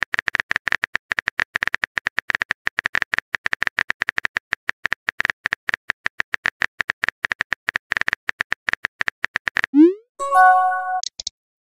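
Phone-keyboard typing clicks, rapid and uneven, for almost ten seconds. Then a quick upward swoop, like a message being sent, and a short multi-note chime of a message arriving.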